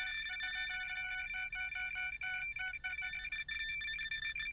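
Electronic background music: a few high tones held steadily under a quick, uneven run of short beeps at two lower pitches. The beeps pause briefly after about three seconds.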